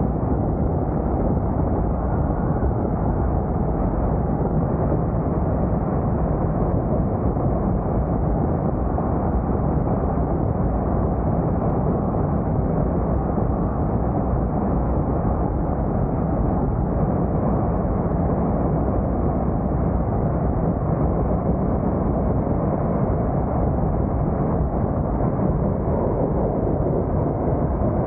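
Steady wind buffeting a car-roof-mounted camera's microphone while the car drives, with road noise underneath.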